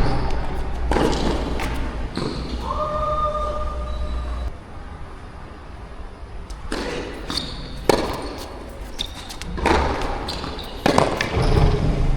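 Tennis ball being struck by rackets and bouncing on the court during a rally, a sharp hit or bounce every second or so, with wind buffeting the microphone for the first few seconds and again near the end. A short held pitched sound, such as a shoe squeak or a brief call, comes about three seconds in.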